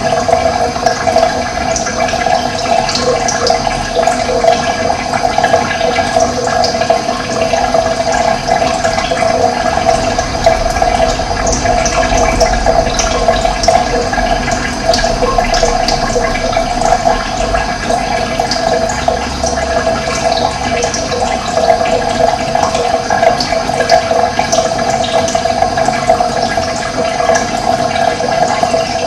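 Running water rushing steadily, with birds chirping in short, scattered calls over it.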